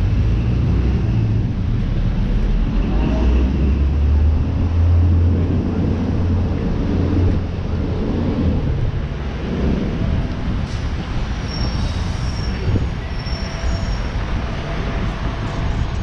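Street traffic with a heavy vehicle's low engine rumble, loudest in the first half and easing after about seven seconds, then a few short high squeals.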